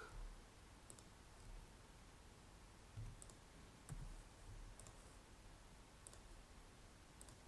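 Several faint, scattered computer mouse clicks over near-silent room tone.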